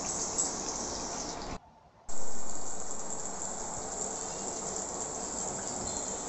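Tamarind fish gravy simmering and sizzling in a pan on the stove, a steady bubbling hiss. It drops out briefly about one and a half seconds in, then returns louder and settles back.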